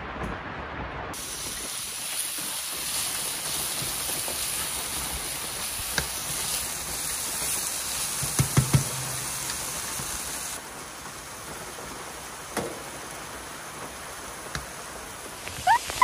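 Steady rushing hiss of storm wind and rain, with a few dull thumps about halfway through.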